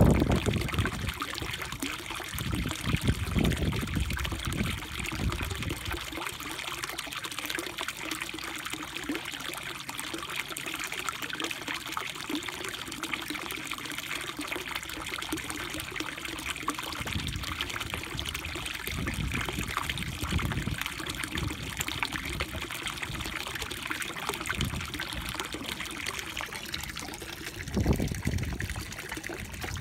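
Water trickling and splashing steadily into a koi pond, from the pond's pipe outlet, with a few short low rumbles now and then.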